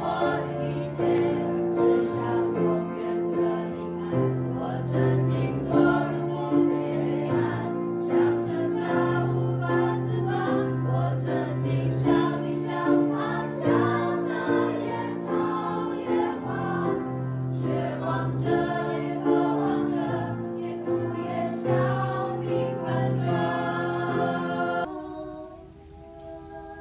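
A group of voices singing together in sustained, changing chords with a steady pulse. About 25 s in it drops to a softer passage of higher held notes.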